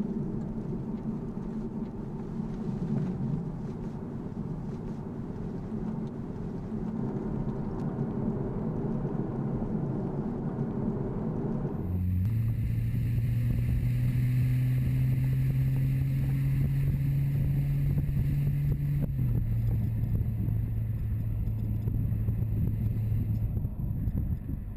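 BMW 435i's 3.0-litre turbocharged straight-six running under way: first a steady drone, then, after a cut about halfway through, a deeper, stronger engine note whose pitch rises slowly under acceleration, drops suddenly once, and then holds steady.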